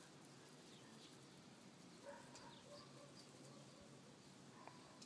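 Near silence outdoors, with a few faint, short bird chirps.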